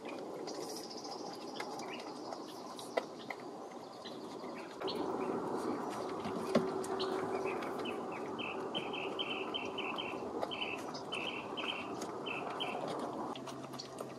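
A bird calling a short note over and over, about three a second, over a steady outdoor background rush that grows louder about five seconds in.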